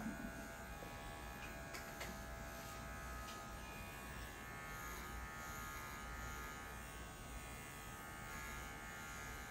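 Cordless electric pet clippers running with a steady buzz as they shave a small square of a Scottish Deerhound's coat.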